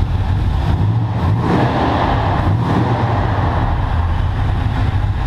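1965 Dodge Dart GT's V8 engine running steadily, with a brief swell in the sound about a second and a half in.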